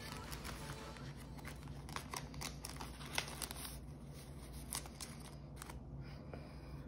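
Sticker sheets and paper being handled on a desk: scattered light rustles and small clicks over a low steady hum.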